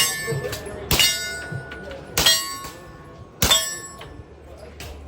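Four slow, single gunshots, each followed by a metallic ring like a bullet striking a steel target.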